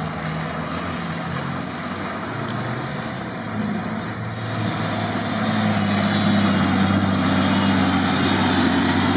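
Off-road SUV's engine running under load as it wades through deep muddy water, the engine note rising and getting louder about halfway through, over a steady wash of water and mud noise.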